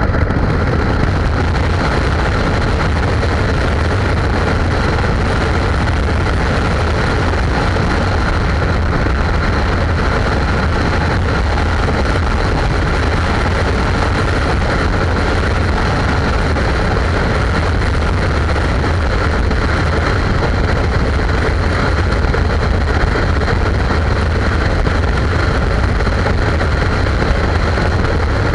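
Touring motorcycle cruising steadily at highway speed: a constant engine drone mixed with wind rush and road noise on the bike-mounted microphone.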